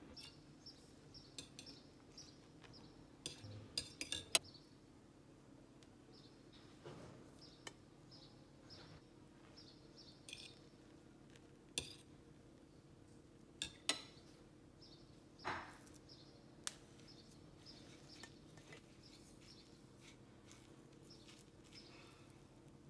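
A metal spoon clinking against a bowl now and then as fish pieces are turned in beaten egg white, with a handful of sharp clinks in two clusters, over a faint steady hum.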